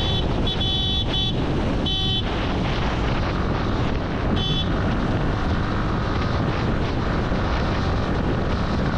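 Yamaha sport motorcycle cruising at highway speed, about 80–95 km/h, with steady engine and road noise and wind rushing over the microphone. A few short high beeps sound in the first half.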